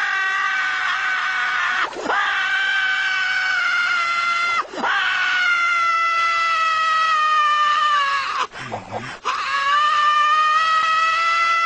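Squidward Tentacles, the SpongeBob SquarePants cartoon character, screaming in long drawn-out yells. Each scream is held for a couple of seconds or more and sags slightly in pitch, with short gasps for breath about two, four and a half, and eight and a half seconds in.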